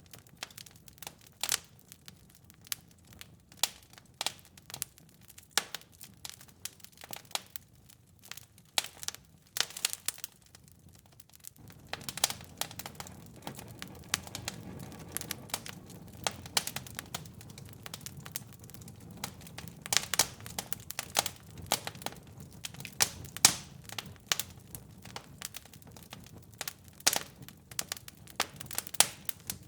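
Wood fire in a fireplace crackling, with irregular sharp pops and snaps several times a second. About a third of the way through, a low steady rushing sound joins the crackle and stays.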